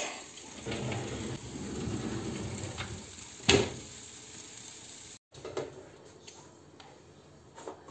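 A tray of chestnuts scraping into an oven, then the oven door shutting with a sharp knock about three and a half seconds in; a few light handling clicks follow.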